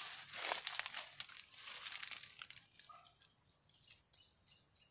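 Dry leaves crackling and crunching as someone moves through dry scrub with a deep litter of fallen leaves, louder over the first two seconds or so and dying away after about three seconds.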